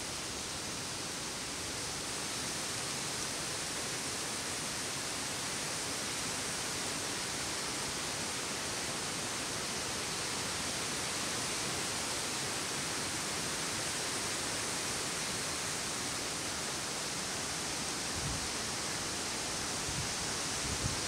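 Wind blowing through the forest canopy, rustling the leaves in a steady hiss, with a few soft low thumps near the end.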